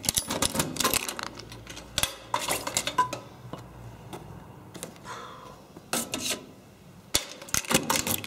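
Keys jangling and a key working the lock of a metal wall-mounted mailbox, with sharp metallic clicks and clinks as the box door is opened and shut again. Paper rustles in between as post is taken out.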